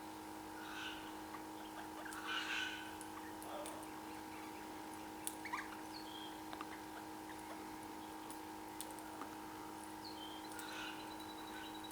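Faint, scattered bird chirps and short calls, with a few sharp clicks, over a steady low hum.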